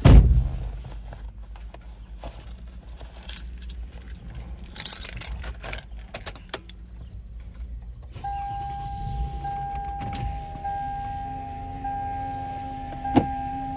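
A heavy thump at the start, then keys jangling and clinking as they are handled inside a Toyota Sienna minivan. About eight seconds in, a steady electronic warning tone from the van starts and keeps sounding, with a sharp click near the end.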